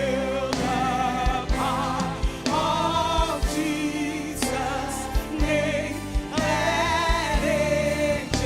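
Gospel worship music: singers hold long notes with vibrato over a band with drum hits.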